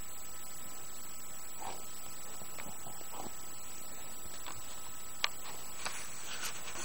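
Steady recording hiss with a thin electronic whine from the camcorder. A few faint rustles, then a sharp click about five seconds in and more small handling noises as the camera is turned around.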